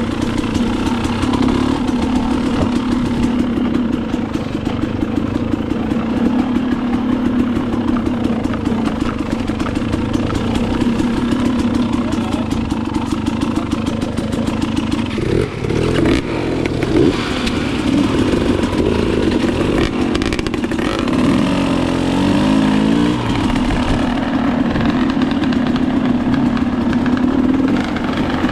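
Two-stroke dirt bike engine running while being ridden, its revs rising and falling a couple of times around the middle before settling back to a steady pitch.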